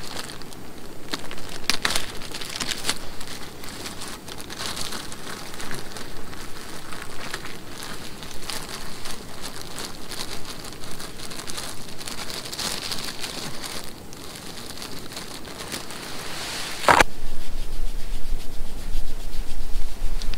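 Frying pan on a small camping gas stove crackling and sizzling as it cooks breakfast; about three-quarters of the way through the sound cuts abruptly to a louder sizzle of sausage frying in the pan, with a low rumble underneath.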